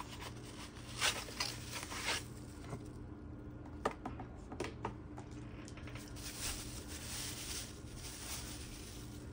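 Packaging handled by hand: a cardboard box opened and set down, with a few sharp clicks and scrapes, then a plastic bag crinkling as a bottle is pulled out of it.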